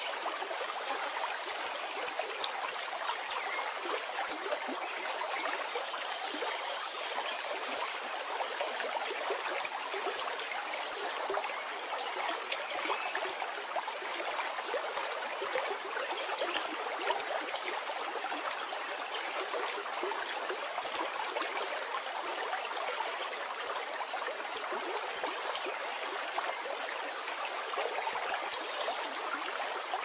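Forest stream rushing in small rapids over rock slabs: a steady, even rush of water with no let-up.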